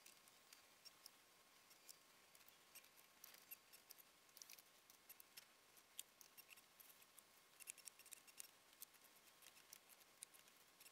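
Near silence, with faint, irregular small clicks and ticks over a faint steady high tone.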